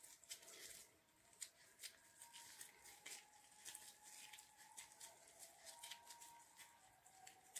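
Near silence: faint, scattered small clicks and rustles from plastic-gloved hands pulling and pinching dough in a plastic bowl, over a faint steady high hum.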